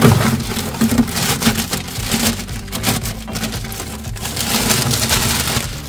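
Clear plastic bag crinkling and rustling, with some cardboard box handling, as a new metal pellet-grill burn pot is pulled out of its packaging.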